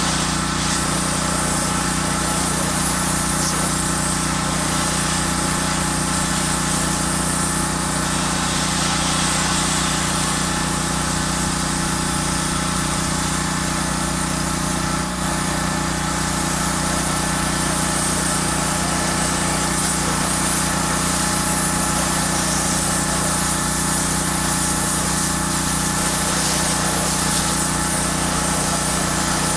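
Pressure washer running steadily, a constant engine drone with the hiss of water spraying from the wand as the house siding is rinsed.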